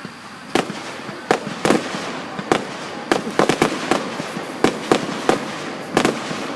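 Fireworks going off: a rapid, irregular string of sharp bangs, a dozen or more, starting about half a second in.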